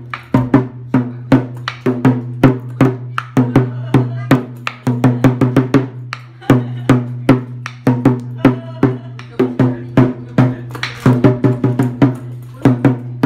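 Lion dance music: a drum and cymbals beat out a fast, steady rhythm.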